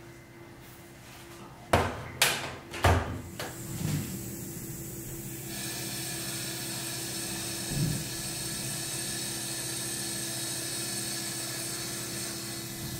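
A few sharp knocks about two to three seconds in, then from about five seconds in an electrostatic powder-coating gun spraying: a steady hiss with a thin whine over it.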